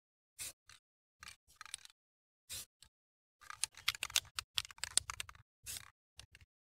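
Aerosol spray-paint can hissing in short, separate bursts, with a couple of seconds of rapid clicking and rattling midway.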